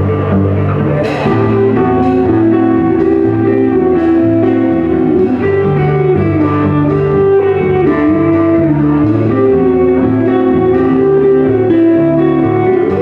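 Live country band playing an instrumental break: drums, bass and guitars under a lead line that slides and bends in pitch.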